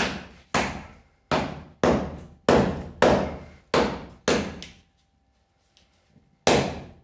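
A medium bushcraft knife chopping into a knotty tree branch laid across a wooden stump: sharp chops of the blade into the wood, about two a second. Eight come in quick succession, then a pause of about two seconds before one more.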